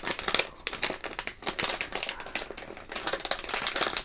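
Metallized anti-static shielding bag crinkling in the hands as it is handled and opened, a rapid run of crisp crackles.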